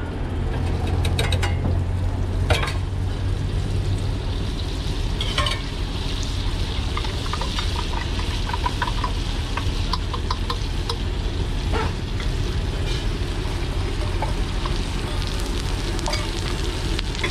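Egg frying and sizzling on a large flat griddle (tawa), with a metal spatula scraping and tapping on it now and then. A low hum sits under it for the first few seconds.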